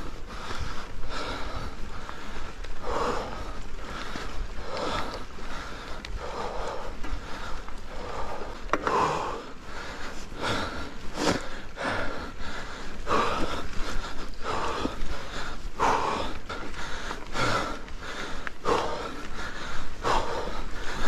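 A cyclist's heavy breathing from the effort of a steep uphill climb on a mountain bike, one loud breath about every second and a half, over a steady low rumble.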